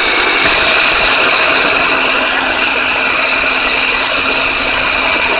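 1996 Ford Ranger starter motor spinning with a steady whir while powered through its solenoid. The solenoid's pull-in winding is partly bad, so the motor spins but the drive gear extends only part way instead of engaging.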